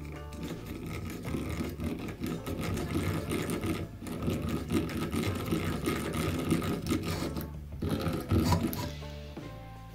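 Miniature hand-cranked drill with brass gears being cranked fast: a rapid, even whirring chatter of meshing gears. It stops briefly twice, about four seconds in and again near eight seconds.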